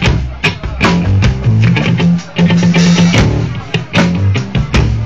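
Live blues-rock played on an electric guitar and a drum kit: a guitar riff of held low notes over steady drum hits.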